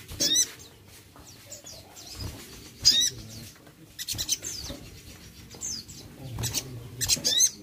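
Sunbird giving sharp, high chirps in short bursts several times, with the loudest cluster near the end, mixed with wing flutters and dull thumps as it hops on the perch.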